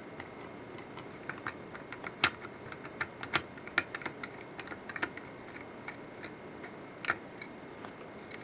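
Small, irregular metal clicks and taps of a screwdriver and parts on a Charter Arms AR-7 .22 rifle's receiver as a screw is taken out, the sharpest a few seconds in and another near the end.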